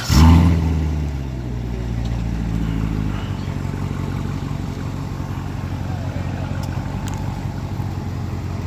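A C7 Corvette's V8 engine starting up at close range: it catches with a loud flare of revs, eases back within about a second and settles into a steady idle.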